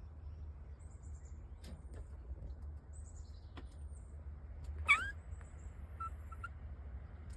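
Squirrel calling: one loud, short call that rises and falls in pitch about five seconds in, with a few faint high chirps around it. A steady low rumble of wind on the microphone runs underneath.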